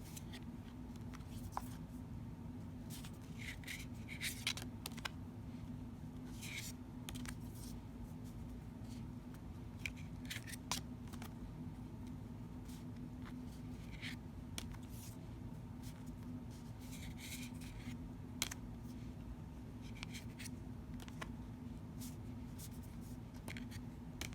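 Oracle cards being handled and shown one at a time: short soft slides and rubs of card against card every few seconds, over a steady low hum.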